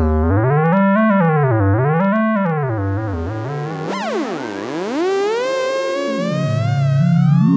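Theremin tones gliding up and down in pitch. A low tone swoops in about three slow arcs, a second tone dives steeply and climbs back about halfway through, and then a tone rises slowly toward the end.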